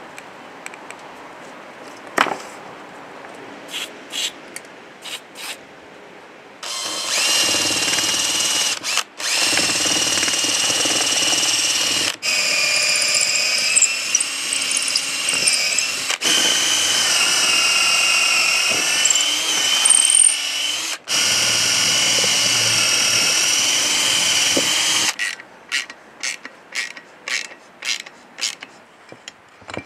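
Power drill boring a hole through a wooden handle. The motor whine starts about 7 s in and runs with a few short stops before cutting out near 25 s. Light clicks and knocks of handling come before and after.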